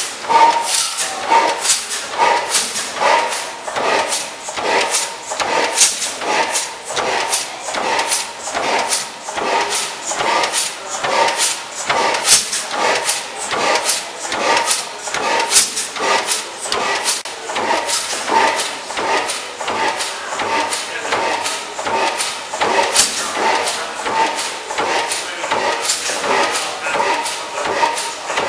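Large 94 hp National stationary gas engine running steadily: an even beat of sharp mechanical knocks and clatter, about two to three a second.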